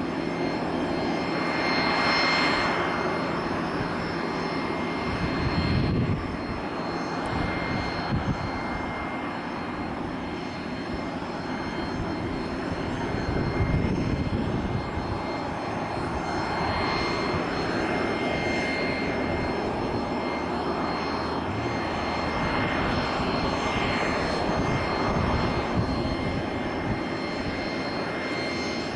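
Regional jet's turbofan engines running with a steady high whine over a noisy rush. Wind buffets the microphone in low gusts several times.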